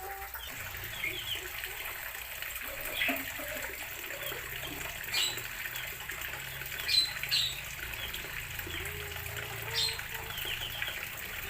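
Small birds chirping on and off over a steady background hiss, with a few sharp clicks or taps, the loudest of them a close pair about two thirds of the way through.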